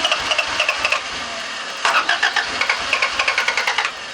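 Honda CRX's swapped-in Si engine being cranked over by the starter, a rhythmic churning of about six pulses a second that eases about a second in and comes back strongly near two seconds in, stopping near the end. It cranks but does not start.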